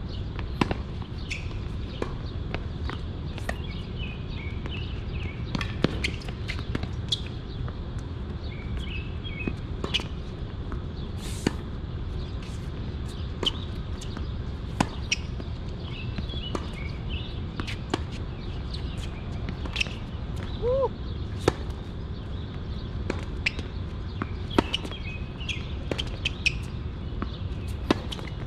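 Tennis ball struck back and forth in a rally, sharp pops every second or two. Birds chirp between the hits over a steady low rumble.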